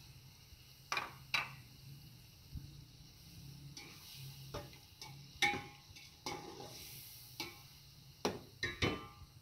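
Cooking utensil clinking and knocking against a cooking pot while the contents are stirred, about nine short irregular knocks over a steady low hum.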